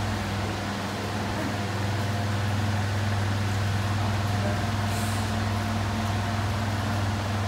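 Steady low electric hum of standing electric fans running in the room, constant throughout with no change in pitch.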